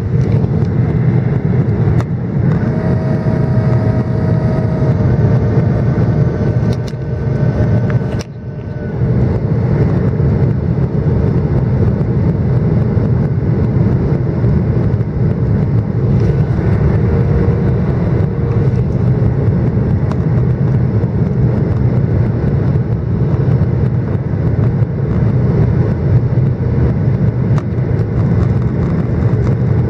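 Steady rumble of engine and airflow noise inside a jet airliner cabin during descent toward landing. A few seconds in, a steady higher whine joins for about five seconds, and the noise dips briefly about eight seconds in.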